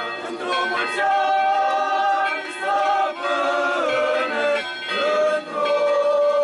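Choir singing unaccompanied Orthodox church chant in long held notes that shift pitch every second or two.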